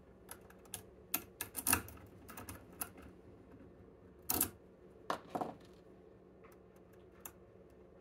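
Small steel lock-picking tools clicking and scraping against a lock cylinder held in a vise as a tension tool is fitted into the keyway: a quick run of light metallic clicks, then two louder clusters of clicks about four and five seconds in.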